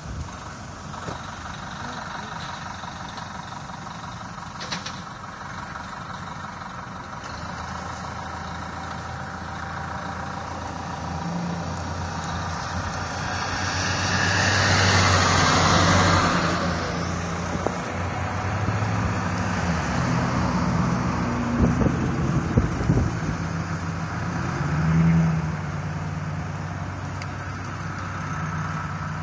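A motor vehicle engine idling close by, a steady low hum that shifts slightly in pitch now and then. About halfway through, a broad rushing sound swells up and fades away.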